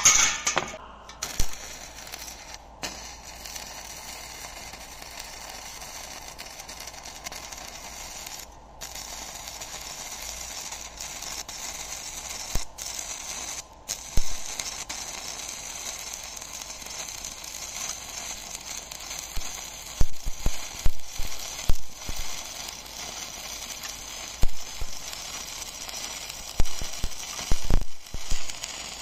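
Stick (MMA) welding arc from a thin 1 mm E6313 electrode on 1 mm sheet steel: a steady crackling sizzle with a few brief breaks. In the last third it comes with loud sharp pops.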